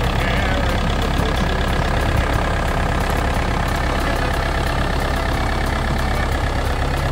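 1981 Case 995 David Brown 4x4 tractor's diesel engine running steadily.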